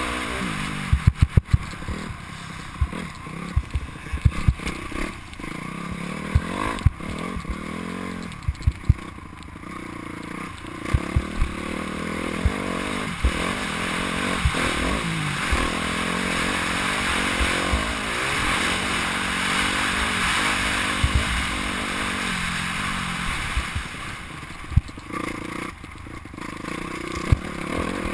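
Motocross bike engine revving up and down as it is ridden round a dirt track, heard from a camera on the rider's helmet. Repeated sharp knocks and clatter come through as the bike crosses the ruts and bumps.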